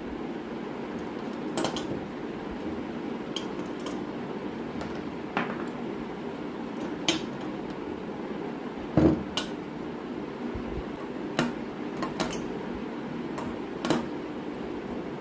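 Polished black and white pebbles set one at a time into a glass jar, clinking against the glass and against each other in scattered single clicks, with one louder knock about nine seconds in.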